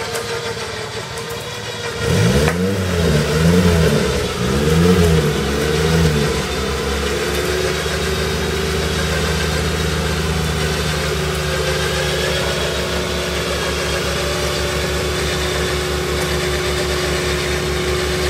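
Off-road 4x4's engine revving up and down three times as the stuck vehicle works against sand piled in front of its wheels, then settling into a steady run as it crawls forward through the riverbed.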